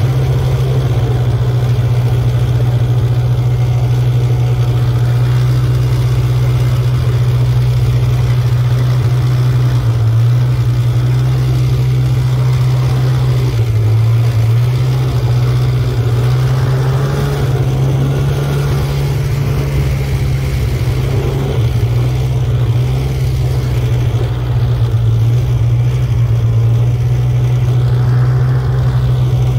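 Snowmobile engine running steadily while towing a snow tube, its note stepping up and down slightly between about ten and eighteen seconds in.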